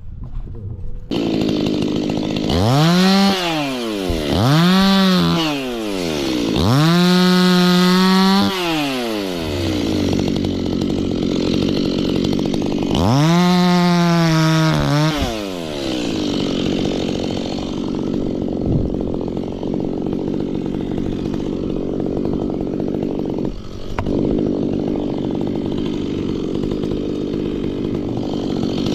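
Two-stroke Stihl chainsaw idling and revving: four times it winds up to full speed, holds for a moment or up to two seconds, and falls back. It then idles steadily through the second half and starts to rev again near the end.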